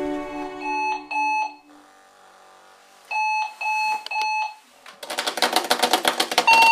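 Sonic Alert Sonic Bomb alarm clock going off: short beeps on one pitch, two and then three. From about five seconds in it turns to a loud, fast pulsing alarm, with a beep starting again near the end. A music tail fades out in the first second.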